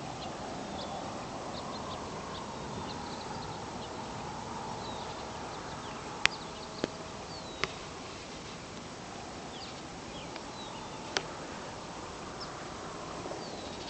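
Small birds chirping in short calls over a steady faint drone, with a few sharp clicks around the middle.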